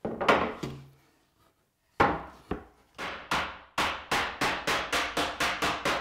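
Wooden mallet knocking on a wooden case top, seating the dovetail joints during glue-up. A few spaced blows come first. From about two-thirds of the way through they become a steady run of light taps, about three a second.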